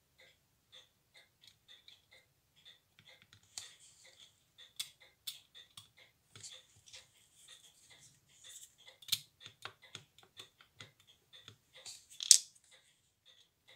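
Steel tweezers and small metal watch parts clicking and tapping as a bridge is lowered and pressed into place on a pocket-watch movement. There is a sharp, loud click about twelve seconds in, and a faint even ticking, about two to three a second, runs underneath.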